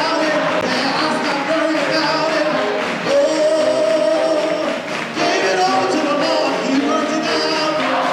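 Large gospel mass choir singing in full harmony, holding long chords, with a brief break a little before five seconds in before the voices come back in.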